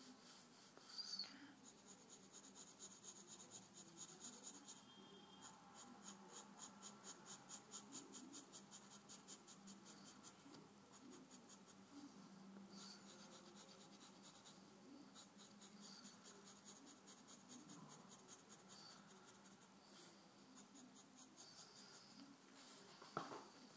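Faint graphite pencil scratching on paper in rapid, evenly repeated shading strokes. The strokes thin out into lighter, sparser scratching after about ten seconds, with a brief sharper tick near the end.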